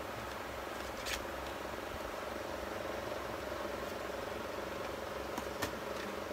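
Steady background hum with a few light clicks and taps from a lipstick tube and its cap being handled, one about a second in and a small cluster near the end.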